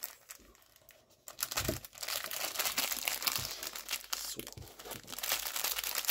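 Clear plastic bag crinkling as it is handled with a knife wrapped inside it. The sound starts quietly, with the crinkling building up about a second in, and there is a soft bump shortly after.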